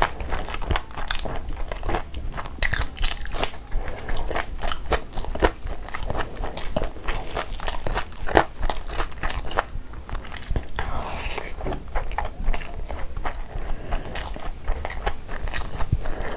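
Close-miked chewing and wet mouth smacks from a mouthful of spicy chicken curry and fried rice eaten by hand, with many short, irregular clicks.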